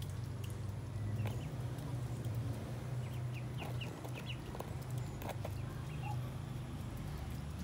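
Muscovy ducks and a duckling calling softly, with a quick series of short high peeps about three to four seconds in, over a steady low hum.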